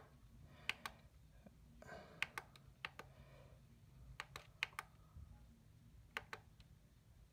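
Faint plastic clicks of the Eton ZoneGuard Plus weather radio's menu navigation buttons being pressed, a dozen or so short clicks, often in quick pairs.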